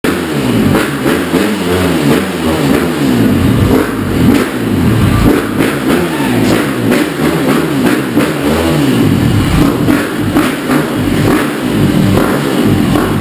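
KTM dirt bike engine being revved hard over and over, its pitch rising and falling in quick repeated blips without a break.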